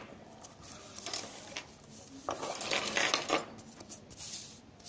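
Steel dissecting forceps and glass petri dishes being handled and set down on a paper-covered table, with a series of irregular clinks and scrapes.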